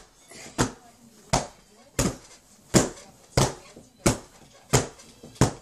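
A child hitting something on a bed over and over, a sharp thump about every two-thirds of a second, eight in all.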